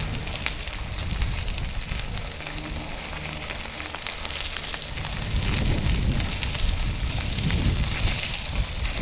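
Bike Friday folding bike tyres rolling over a gravel trail, a steady crackle of grit under the wheels. Wind buffets the microphone with a low rumble that eases about two seconds in and picks up again after about five seconds.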